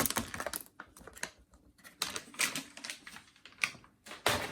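Whole coffee beans poured into the plastic bean hopper of a Siemens coffee machine, rattling and clicking in irregular bursts, with the loudest clatter near the end.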